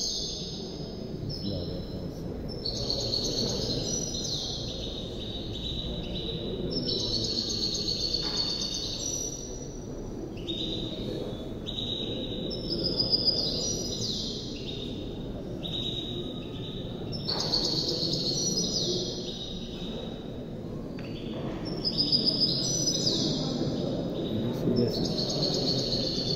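Caged songbird singing high, quick phrases of trills and whistles, one after another with short pauses, over a low steady room noise.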